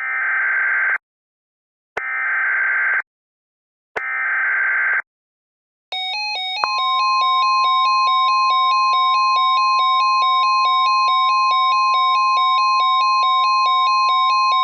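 Emergency Alert System SAME header: three one-second bursts of warbling digital data tones, two seconds apart. Then the attention signal begins, an alternating two-pitch electronic tone joined about a second later by a steady high tone, held for about eight seconds. This marks the start of a new tornado warning.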